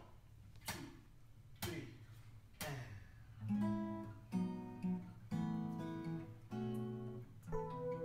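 Acoustic guitar strumming chords: a few single strums about a second apart, then a steadier rhythm of ringing chords from about three and a half seconds in.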